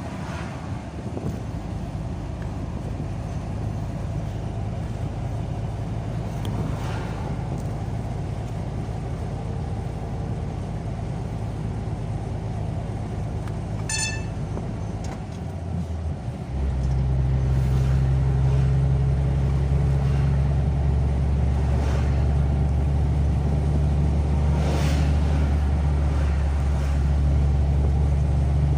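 Car driving along a road: steady engine and tyre rumble, which becomes louder and deeper about 16 seconds in. A few brief swells of other vehicles passing, and a single sharp click about halfway through.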